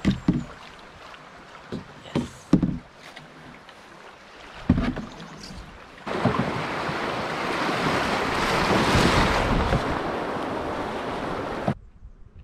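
Canoe being paddled: a few short knocks and splashes of the paddle in the first half. Then a loud, steady rushing noise starts suddenly about halfway through and cuts off abruptly near the end.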